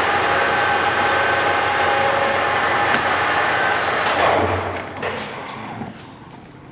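Moriseiki MS-1250 engine lathe running at speed with a steady gear whine, and a sharp click about three seconds in. About four seconds in the spindle is stopped and the whine falls in pitch as it winds down, leaving a low hum.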